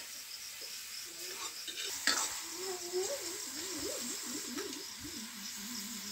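A person's voice humming, the pitch wavering up and down for about four seconds.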